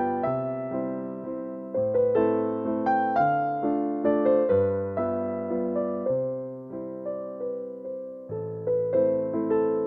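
Background piano music: a flowing run of struck notes over a bass note that changes every second or two.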